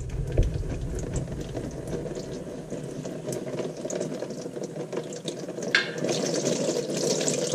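Old transmission fluid draining from a ZF 8-speed automatic's pan and splashing into a plastic tub. The flow grows heavier near the end.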